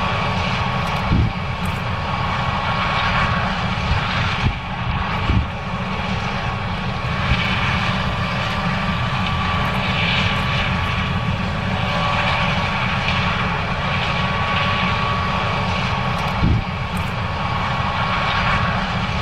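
John Deere S770 combine harvester running steadily while harvesting corn: a constant engine and machinery drone with a steady whine, broken by a few brief thumps.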